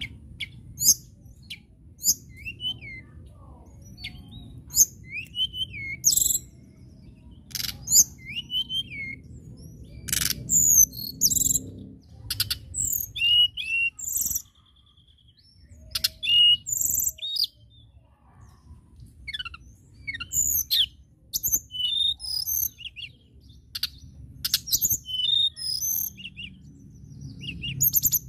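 Caged blue flycatcher (tledekan) singing: a run of short, high, clear whistled phrases with quick up-and-down slides, one every second or two with a few brief pauses.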